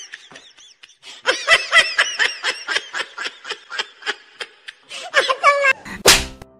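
Human laughter, a quick run of short repeated laughs lasting several seconds. Near the end a single loud, sharp sound cuts in.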